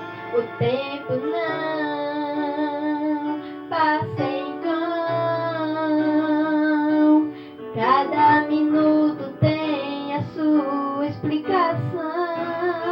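Gospel song with plucked guitar accompaniment and a woman singing long, sliding held notes.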